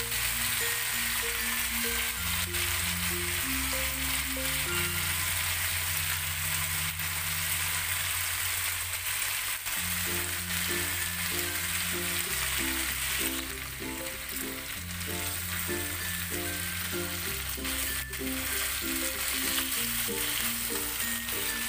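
Chicken pieces sizzling in oil on a nonstick grill pan while a sweet soy basting sauce is brushed on and the pieces are turned with tongs. Background music with a slow stepping bass line plays throughout.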